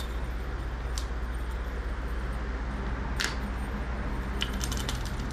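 A small bell on a feathered cat wand toy jingling in a few short tinkles: one about a second in, a stronger one near three seconds, and a quick run near the end, over a steady low hum.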